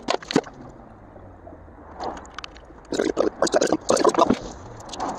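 Degreaser being poured from a barrel into a small jug to top it up, the liquid splashing and sloshing in irregular spells that are busiest about three to four seconds in. A couple of sharp clicks come at the very start.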